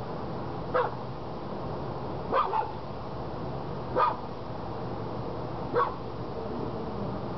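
A dog barking five times, one or two seconds apart, with two of the barks close together, over steady background noise.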